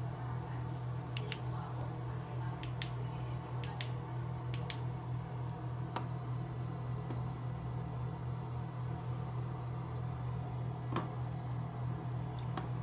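A steady low hum with scattered sharp clicks and taps, several in quick pairs, from water drops and a plastic lamp tube being handled in a wet porcelain sink.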